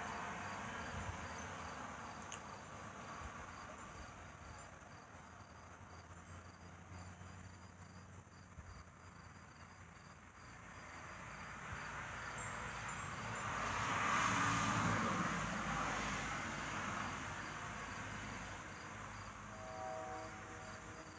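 Crickets chirping in a steady, even pulse. Under them a distant rumble swells and then fades away about two-thirds of the way through.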